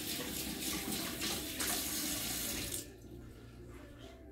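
Kitchen tap running, water splashing over hands being rinsed in a stainless sink; the tap is shut off about three seconds in.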